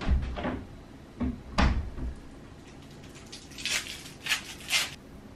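A door knocking and thudding shut in the wind: two heavy low thumps in the first two seconds, then three sharper, lighter clacks about three to five seconds in.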